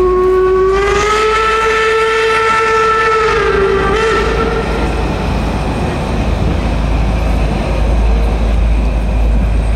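Steam locomotive's whistle blowing one long note, sliding slightly up in pitch as it opens and then holding for about five seconds, over the rumble of the train pulling away. After the whistle stops, the train's steady rumble goes on alone.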